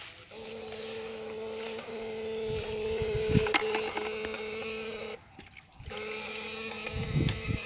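Homemade battery-powered electric fish shocker humming steadily while switched on. It cuts out for under a second about five seconds in, then hums again. Low thuds from handling come about three seconds and seven seconds in.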